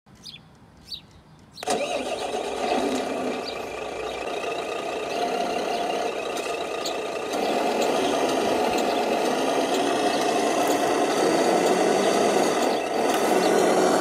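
Radio-controlled dump truck's engine-like running sound, starting abruptly about a second and a half in and getting louder about halfway through.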